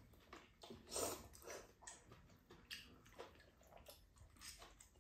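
Faint eating sounds: udon noodles slurped and chewed, with a few short, soft clicks scattered through.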